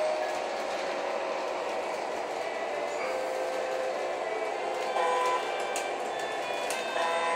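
O-scale model train running on its track loop: a steady rolling rumble of wheels and motor as the diesel locomotive comes round toward the camera. Short chiming tones at different pitches sound over it now and then.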